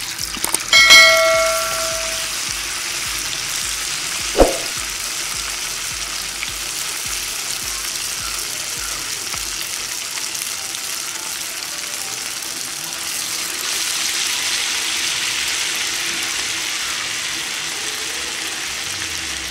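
Madhur vada deep-frying in hot oil in a pan, a steady sizzle throughout. About a second in, a short bell chime from a subscribe-button animation sounds over it, and a single sharp knock comes at about four and a half seconds.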